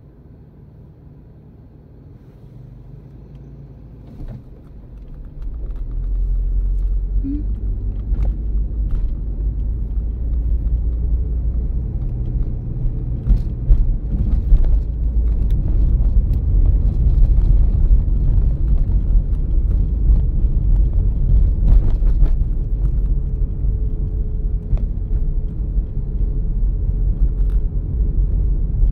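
Car interior noise: a quiet idle hum while stopped, then a steady low rumble of engine and tyres from about five seconds in as the car pulls away and drives on, with a few faint clicks and knocks.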